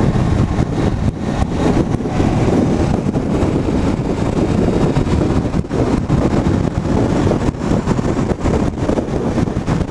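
Honda CBR500's parallel-twin engine accelerating through clutchless upshifts, with heavy wind rush on the camera's microphone at speed.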